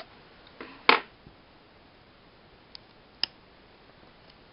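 Handling clicks from the laptop's screen assembly as the display cable's connector is worked loose: one loud sharp click about a second in, then two faint clicks later.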